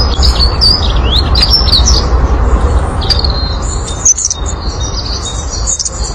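Birds chirping: many short, quick chirps and whistles that sweep up and down in pitch, in two flurries, with a brief lull about two seconds in. A loud, steady low rumble runs underneath.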